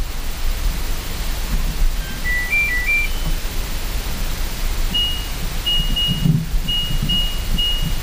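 Washer-dryer control panel beeping, heard from inside the drum: a short tune of electronic tones about two seconds in, then a run of short, evenly pitched beeps from about five seconds on, as buttons are pressed to set the wash. Under it, a steady hiss with a low rumble.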